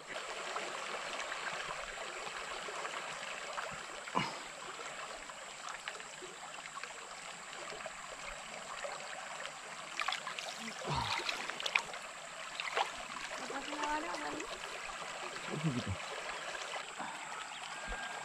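Steady rush of river water, with a thin high tone running over it. Faint voices and a few soft knocks come through now and then.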